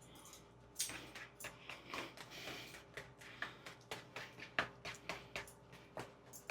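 Light clicks and taps of kitchen utensils, several a second, coming a little faster and more evenly in the second half.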